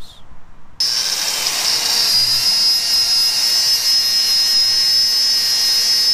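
Corded angle grinder running at full speed with a steady high whine, grinding down a welded-in steel sleeve at the Jeep's front steering knuckle. It starts suddenly about a second in.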